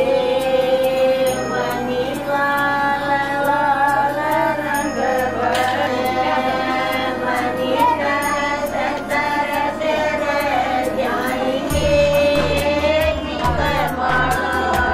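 A song sung by high, women's voices over a steady beat and bass line.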